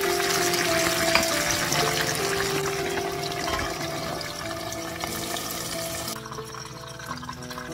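Starch-battered eggplant pieces deep-frying in hot oil: a dense crackling sizzle that stops about six seconds in.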